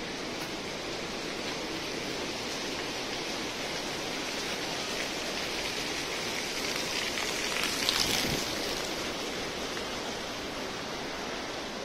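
Water pouring off a rock overhang and splashing onto a wet stone path: a steady rushing spatter that swells to its loudest about eight seconds in, then eases off.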